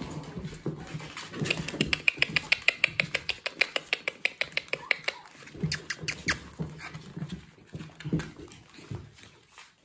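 Papillon dogs and puppies at play, making low growls and grunts. Around the middle comes a fast, even run of sharp clicks, about six or seven a second, from their claws on the hard floor.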